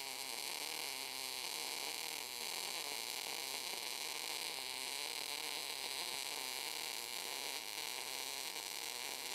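Continuous steady hiss of a MIG welding arc from a Cebora Pocket Pulse synergic inverter welder as a bead is laid.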